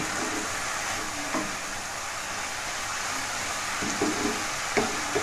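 Chopped mixed vegetables sizzling steadily in a pan as they are stirred and sautéed on medium flame, softening before water is added, with a few short knocks as they are stirred.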